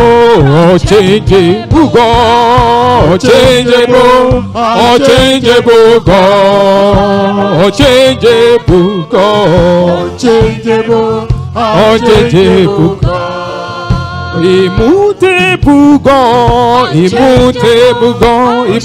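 Church worship song: voices singing with vibrato over a sustained instrumental accompaniment.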